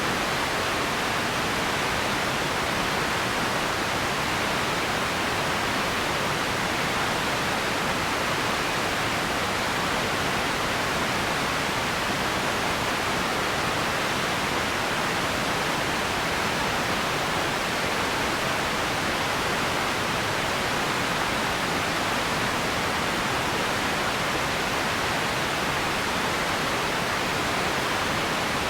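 Steady, unchanging hiss of empty-ambience noise, strongest in the upper middle range, with no events or changes in it.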